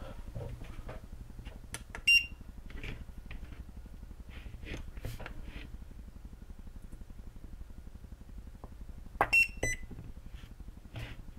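BIFRC portable battery spot welder beeping: one short beep about two seconds in, then two quick welds near the end, each a sharp snap with a beep, as the probe pens fire on nickel strip against a lithium cell. Light handling clicks in between.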